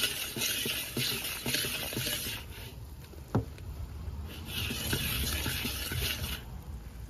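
Gram flour sizzling in hot oil in a kadhai as a spoon stirs and scrapes it. The sizzle comes in two stretches with a lull between them, and there is one sharp knock about three and a half seconds in.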